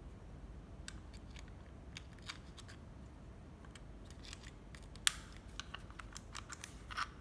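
Faint clicks and taps from a cordless drill being handled, with a sharper click about five seconds in and a few quick clicks near the end.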